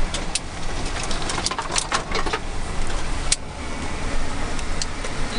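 Nissan four-wheel-drive vehicle driving on a rough bush track, heard from inside the cabin: steady engine and road noise with many short knocks and rattles.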